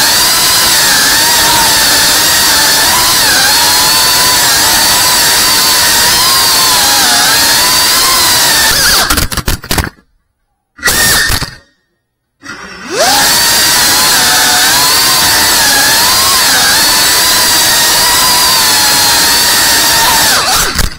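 Cinewhoop FPV drone's brushless motors and ducted propellers whining, the pitch wavering up and down with the throttle. About ten seconds in the sound cuts out for roughly two seconds, with one short burst in between, then climbs back in pitch as the motors spin up again.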